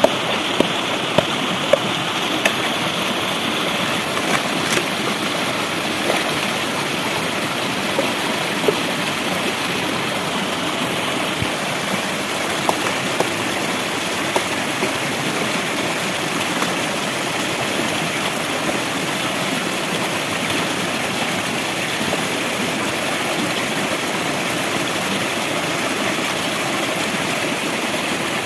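Shallow stream rushing steadily over rocks, with a few short sharp clicks scattered through it from a knife cutting into bamboo shoots.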